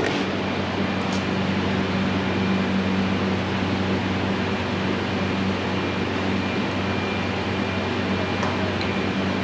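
Steady mechanical hum of a running fan, with an even low drone and no change in level; two faint ticks, about a second in and near the end.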